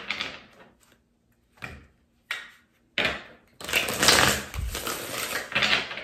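A deck of tarot cards being riffle-shuffled on a wooden tabletop: a rattle dying away at the start, a few short flicks of the cards, then a long loud riffle from about three and a half seconds in.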